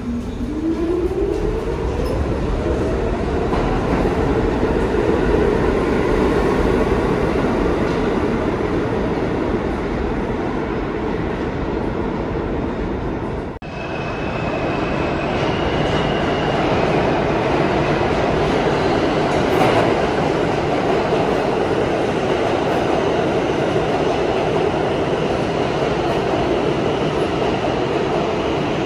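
New York City subway train pulling away, its traction motors whining upward in pitch over the first few seconds, then running at speed with steady wheel-on-rail noise. There is an abrupt break about halfway through, after which faint high wheel squeal comes in.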